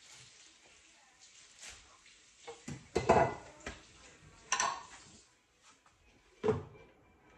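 Dishes and kitchenware clattering as they are handled at the counter: a few separate knocks and rattles, the loudest about three seconds in, others near four and a half and six and a half seconds.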